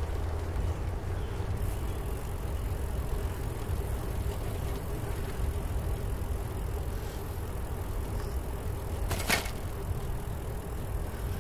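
Bicycle rolling along a trail, with a steady low rumble of tyres and wind on the bike-mounted camera's microphone. There is a brief sharp rattle about nine seconds in.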